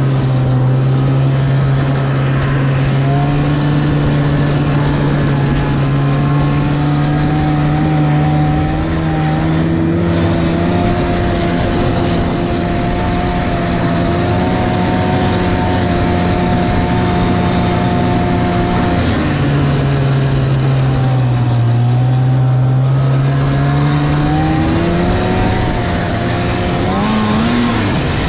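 Snowmobile engine running continuously under throttle, over steady wind and track noise. Its pitch holds steady, drops about two-thirds of the way through, then climbs back and rises sharply near the end as the throttle is opened.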